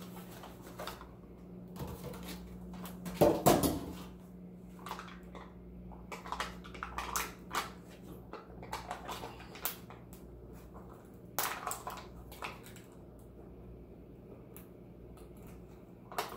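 Crackling and rustling of cardboard and plastic packaging as a pack of chocolate pudding cups is handled and pulled apart, in irregular bursts, loudest about three seconds in. A steady low hum runs underneath.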